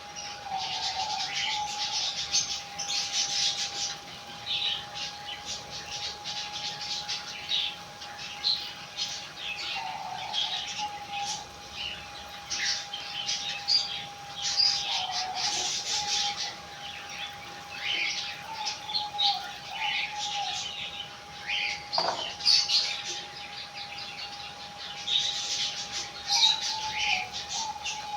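Many small birds chirping continuously and irregularly, with a steady tone held underneath throughout.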